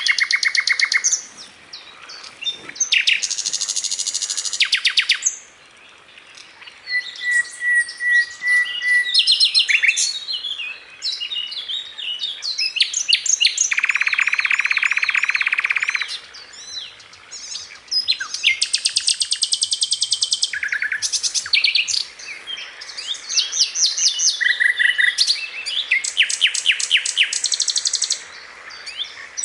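Recorded song of a sikatan londo, a flycatcher: a varied run of rapid, high-pitched trills and chattering note-series. Each phrase lasts a second or two, with short gaps between.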